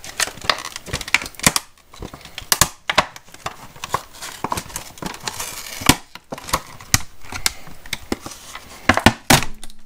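A circular saw blade's retail packaging being pried and worked open by hand: irregular crinkling with many sharp snaps and clicks.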